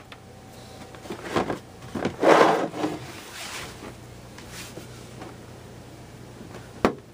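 Side panel of an Alienware Area-51 R2 computer case being slid and worked back onto the chassis. Its grooves and ridge scrape and rub in several short strokes, the loudest about two seconds in, and a sharp click comes near the end.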